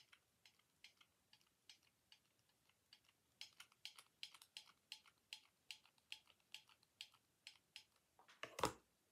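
Faint, irregular small clicks from a glue gun trigger being squeezed, about two or three a second and louder from about three seconds in, with one louder knock near the end.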